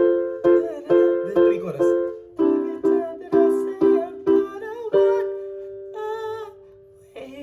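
Band music in a small room: chords struck about twice a second, then about five seconds in a single chord held and left to ring out and fade.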